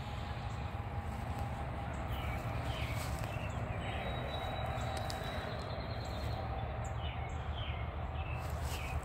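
Footsteps crunching through dry fallen leaves and grass, as short irregular clicks, over a low steady rumble, with birds chirping now and then in the background.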